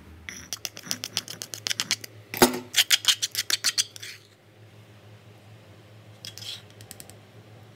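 A utensil clicking and scraping against a granite mortar as a thick chili and peanut dipping sauce is stirred. The clicks come fast, about five or six a second, with one louder knock midway, then stop; a few fainter clicks follow near the end.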